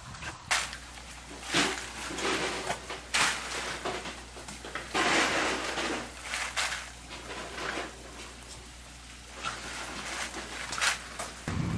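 Irregular clacks and scrapes of oyster shells being handled and shucked, over a steady low hum.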